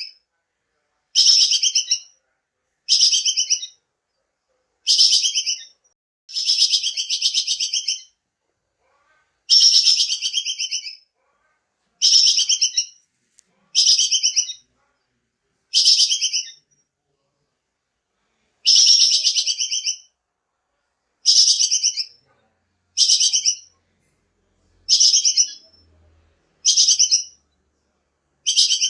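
Recorded bird call repeated over and over: more than a dozen bursts of fast, high rattling chatter, each one to two seconds long, with short silent gaps between them.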